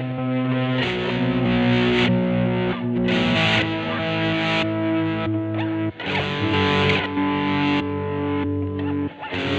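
Electric guitar (a Fender Jazzmaster converted to a humbucker-loaded 'Jazzblaster') played through an amp, ringing chords that change every second or so, with short breaks about six seconds in and near the end.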